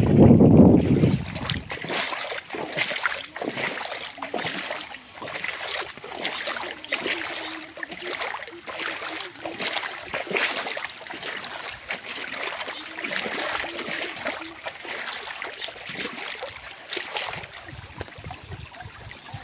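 Floodwater flowing and splashing, with many small irregular splashes throughout. Wind buffets the microphone for the first second or two.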